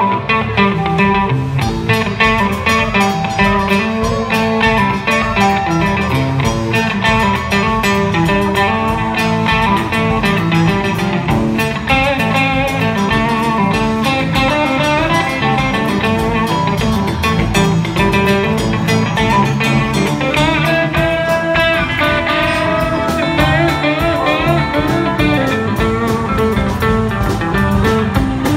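Live band playing an instrumental passage on electric guitars, bass guitar and drum kit, with an electric guitar playing a lead line. Some of its notes bend in pitch past the middle.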